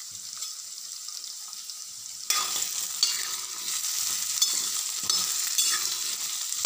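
Cubes of red pumpkin sizzling in hot oil in a steel kadhai. From a little over two seconds in, a steel spatula stirs and scrapes them around the pan, with repeated sharp clicks of metal on metal.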